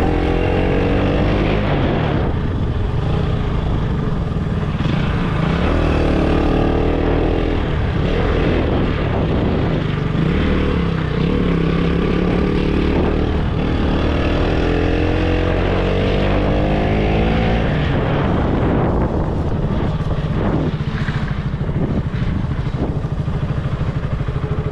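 KTM single-cylinder motorcycle engine running on the move, its pitch climbing three times as it accelerates, with wind rushing over the microphone.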